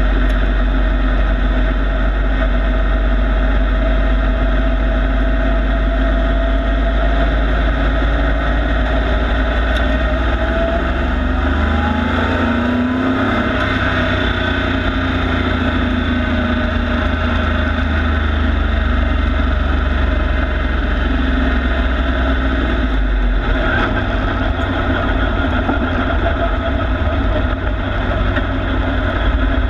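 Pro Truck race truck's engine running continuously as it laps a short oval, heard from inside the cockpit with road and wind noise. The note holds fairly steady, with a brief rise in pitch about halfway through.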